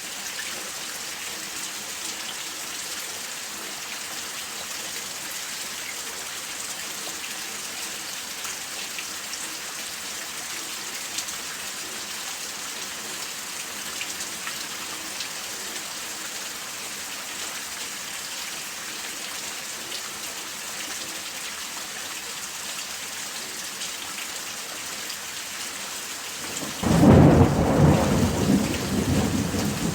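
Steady rain falling, an even hiss of many drops. Near the end a loud crack of thunder breaks in suddenly and rumbles on, slowly dying away.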